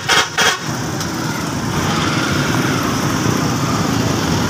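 Motorcycle engines running in dense street traffic, a steady low rumble. Two short toots of a horn come right at the start.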